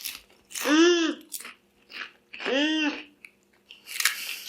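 Two long, wordless hums of enjoyment ("mmm"), each rising then falling in pitch, with short crisp crunches of kettle-cooked potato chips being chewed between them.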